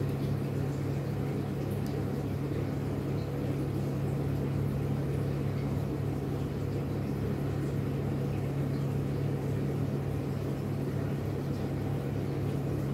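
A steady low machine hum that does not change, like equipment running in a small room.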